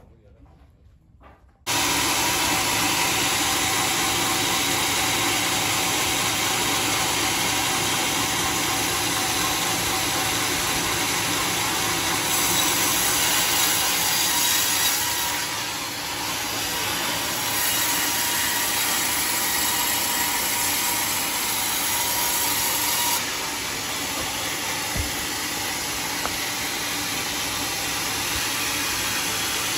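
Band sawmill blade sawing lengthwise through a large teak log: a loud, steady machine-and-cutting noise that starts suddenly nearly two seconds in and shifts a little in level partway through.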